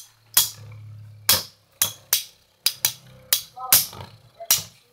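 Two metal Beyblade spinning tops clashing in a plastic stadium: a run of sharp, irregular clicks, several a second at times, over a low whir from the spinning tops.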